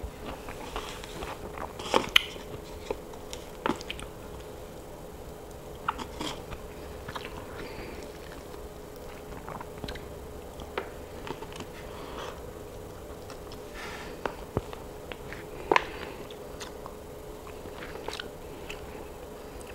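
Close-miked mouth sounds of a person eating baked chicken: biting and chewing, with irregular sharp clicks, the loudest about two seconds in and again late on. A faint steady hum runs underneath.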